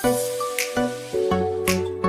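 Background music that starts suddenly, with a bass line, melody notes and sharp percussion hits.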